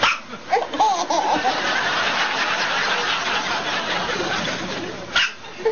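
An 8-month-old baby hiccuping: a short sharp hiccup right at the start and another about five seconds in, with laughter between them.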